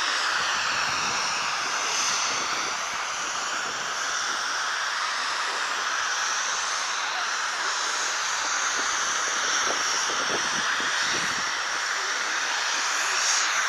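Mountain creek rushing over stones: a steady, even hiss of running water.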